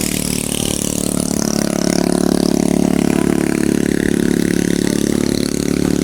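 A motor vehicle's engine running on the road close by, growing louder through the middle and easing slightly near the end as it passes.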